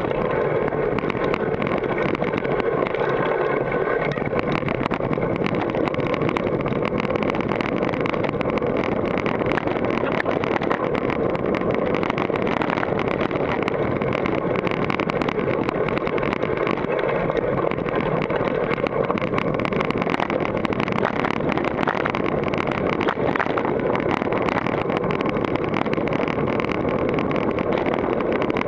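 Continuous rattling, rushing ride noise from a GT Force Carbon mountain bike descending a rocky dirt trail at speed, picked up by a camera mounted on the rider's helmet: the bike and mount shaking over the ground, tyres on dirt, and wind on the microphone.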